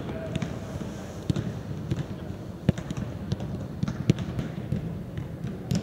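Footballs being kicked and passed on artificial turf in a large indoor hall: several sharp thuds at irregular intervals over a steady low background.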